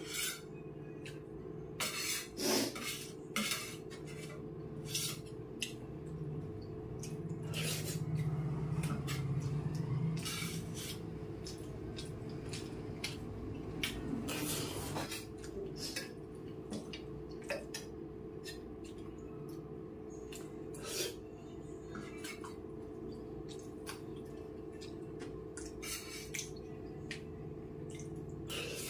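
Steel spoon clinking and scraping against a steel thali plate as rice and curry are scooped up, in sharp irregular clicks. A steady low hum runs underneath.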